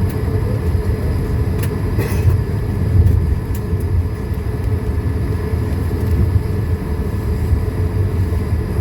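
Cabin noise inside an Airbus A220-300 taxiing: a steady low rumble from its Pratt & Whitney PW1524G geared turbofans at taxi power and the gear rolling, with a few thin steady tones above it. A couple of faint ticks about two seconds in.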